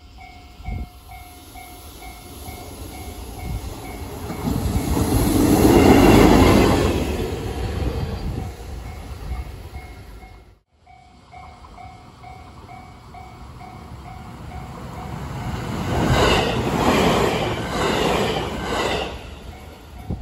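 Japanese level-crossing warning bell ringing in a steady repeating pattern while a train on the JR Sanyo Line passes, loudest about six seconds in. After a cut the crossing bell rings again, and near the end a passing train's wheels click in a rhythm over the rail joints.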